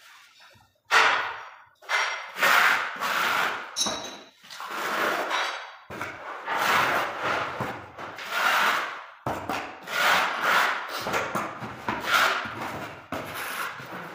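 Hand tool scraping along the joints between porcelain floor tiles in repeated strokes, roughly one a second.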